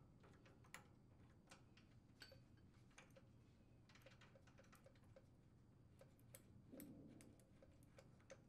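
Near silence with faint scattered clicks and a brief light rustle a little before the end, from hands unscrewing the brass main jet out of the bottom of a small-engine carburetor bowl.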